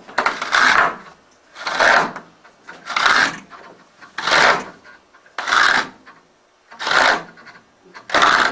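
A hand tool scraping wood in regular strokes, seven strokes a little over a second apart.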